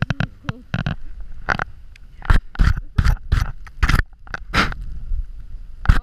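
Snow crunching and scraping right at the camera's microphone in short, irregular bursts, several a second and thickest in the middle of the stretch.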